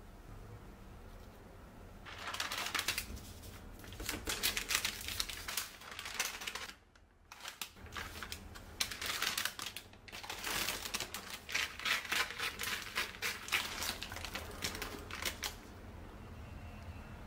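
Parchment paper crinkling and crackling in quick, dense clusters as it is folded and creased shut into a parcel, in two stretches with a short break between, over a steady low hum.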